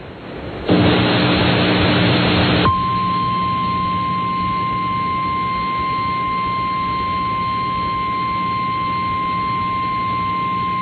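Weather radio receiver hiss with a low hum for about two seconds, then the NOAA Weather Radio 1050 Hz warning alarm tone: one steady high tone held without a break over the hiss, the attention signal that comes before the spoken tornado warning.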